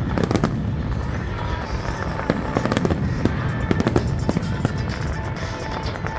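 Fireworks display: a rapid, irregular run of bangs and crackles over a continuous low rumble of shells bursting.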